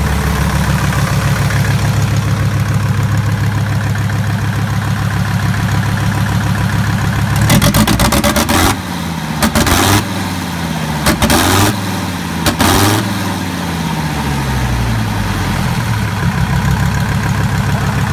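Deutz F5L912 five-cylinder air-cooled diesel engine running on a test stand, idling steadily, then revved in about four short blips about halfway through, each one falling back to idle.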